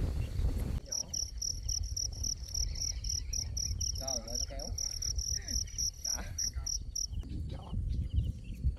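A cricket chirping in a steady run of rapid, high-pitched pulses, about five a second. It starts about a second in and stops near the end, over a low rumble.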